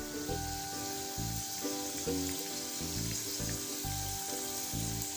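Karanjis frying in hot oil, a steady sizzle, under background music with held notes and a bass line.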